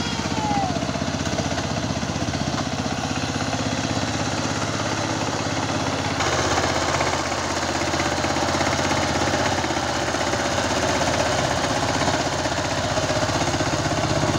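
Power tiller's single-cylinder diesel engine running with a rapid, knocking chug, growing louder and busier about six seconds in.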